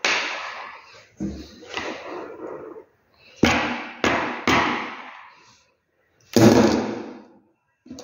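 Automotive fuel cut-off inertia switch being knocked and handled against a tabletop to trip it: about six sharp knocks, each trailing off.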